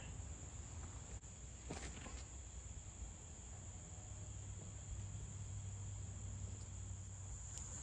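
Steady high-pitched insect chorus, one unbroken trill, over a low rumble of wind or handling noise, with a brief faint rustle about two seconds in.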